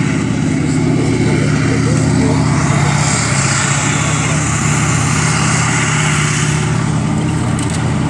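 T-72 tank's V12 diesel engine running loud and steady as the tank drives across a dirt field.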